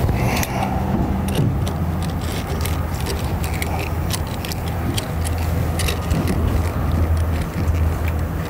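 Small gasoline engine running steadily, driving a cold-water pressure washer's pump during an unloader test, with scattered sharp clicks and scrapes of a hand tool on the pump's hose fittings.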